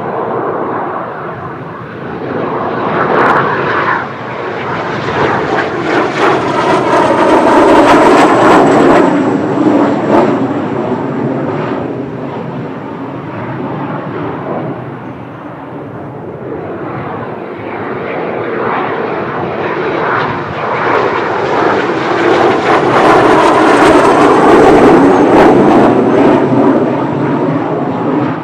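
Kawasaki T-4 twin-turbofan jets of the Blue Impulse team, their engine roar swelling to a peak and fading twice, with a thin high turbine whine at each peak.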